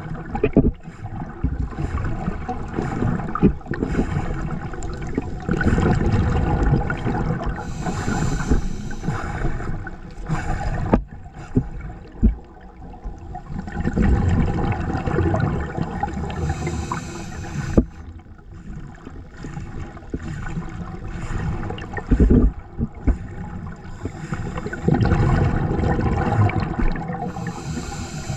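Underwater gurgling and bubbling of a scuba diver's breathing, picked up by the camera underwater. Three hissy bursts of exhaled bubbles, with a few sharp knocks in between.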